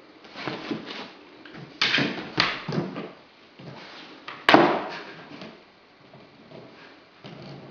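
Greater Swiss Mountain Dog gnawing a rawhide chew: irregular crunching and cracking, with one sharp crack about four and a half seconds in.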